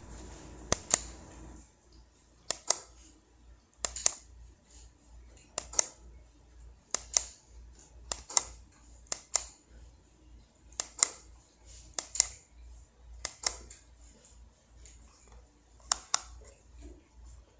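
Sharp clicks, often in quick pairs, repeating about every second and a half over faint background noise.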